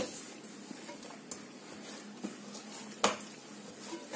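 Dough being worked by hand in a stainless steel bowl: soft handling sounds, with two sharp knocks against the metal bowl, one at the start and one about three seconds in.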